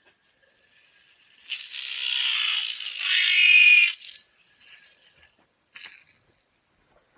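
Yo-yo Z-Stack hub stack spinning with a rough, whirring rattle that lasts about two and a half seconds and grows louder toward the end. The owner thinks something is wrong with this Z-Stack.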